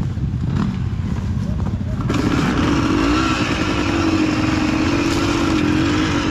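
Dirt bike engine running at low revs, then about two seconds in the revs rise and hold at a higher, slightly wavering note as the bike is ridden over rough trail.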